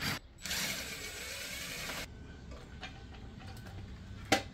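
Tool work on the stock exhaust's mounting hardware under the car: a steady noisy run for about a second and a half, then light metallic clicks and one sharp knock near the end.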